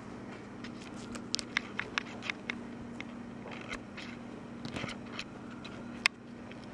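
Two four-week-old kittens scuffling in a bedsheet and batting at a dangled strap: rustling cloth and a run of sharp little scratches and clicks from paws and claws. The clicks are busiest from about one to two and a half seconds in and again around four to five seconds, with one sharp click about six seconds in, over a steady low hum.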